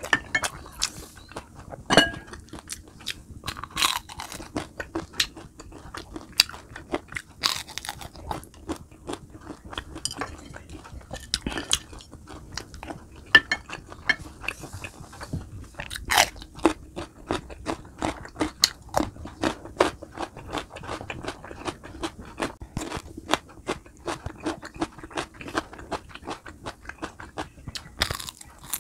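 Close-miked eating: a person chewing and biting fried food, with many sharp crunches throughout.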